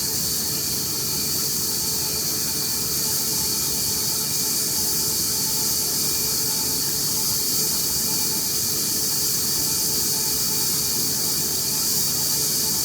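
EGO HPW3200 cordless pressure washer running on its turbo setting, a steady motor and pump hum under a loud hiss of water spraying through the 25-degree nozzle, at about 2,150 PSI. The spraying is even throughout.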